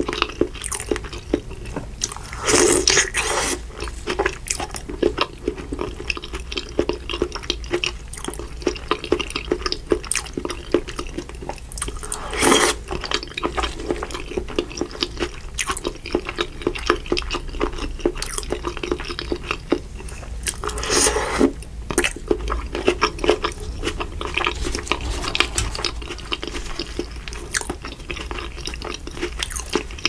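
Close-miked eating: steady wet chewing and squishing of seafood-boil food soaked in butter sauce, with a few louder bites about three seconds in, near the middle, and about two-thirds of the way through.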